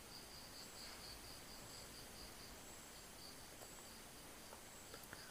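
Near silence: room tone with a faint, high, pulsing chirp and a few faint small clicks near the end.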